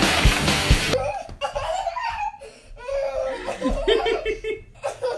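Loud music with a drum beat cuts off suddenly about a second in, then laughter comes in several short bursts.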